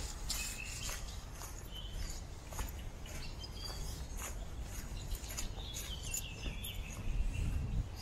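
Small songbirds chirping in bare woodland, with one falling trill of song about six seconds in. Under them, footsteps crunch on dry leaf litter about twice a second over a low rumble.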